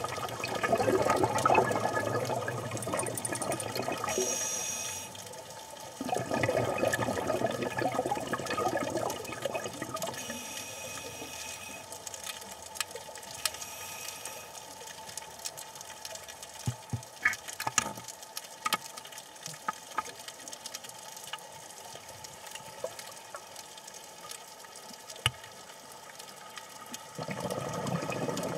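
Scuba regulator breathing underwater: bursts of bubbling on each exhalation alternate with a high hiss on each inhalation. The breath is then held for about twelve seconds, leaving only scattered sharp clicks in the water, before another bubbling exhalation near the end.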